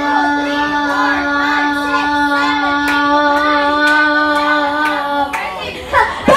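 A young girl singing into a microphone over backing music. A long, steady held note in the music breaks off about five seconds in.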